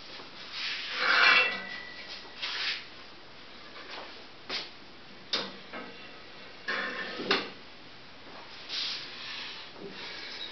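Intermittent handling noises from wooden screen-printing frames being moved about: short scraping, rustling sounds and a few sharp knocks.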